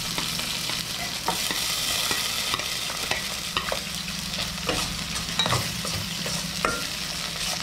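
Garlic and onion sautéing in hot oil in a frying pan: a steady sizzle, with a spatula stirring and clicking against the pan now and then.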